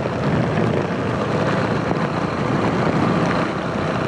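Motorcycle riding through heavy rain on a flooded-wet road: a steady rush of wind on the microphone mixed with rain and the hiss of tyres throwing up spray.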